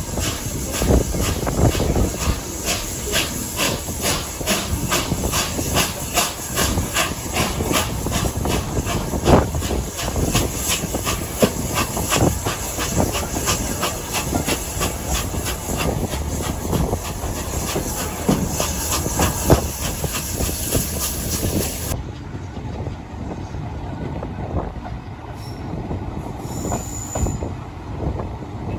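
Steam locomotive working a train, its exhaust beats coming in a fast, even rhythm with hiss, heard from the coaches behind. About 22 seconds in the sound cuts to the steadier rumble of the carriage wheels on the rails, with a brief squeal near the end.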